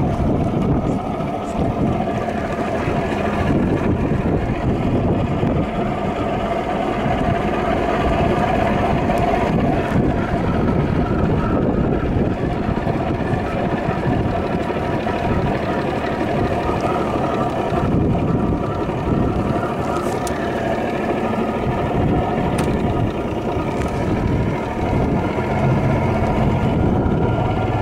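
A small boat's motor running steadily at low speed.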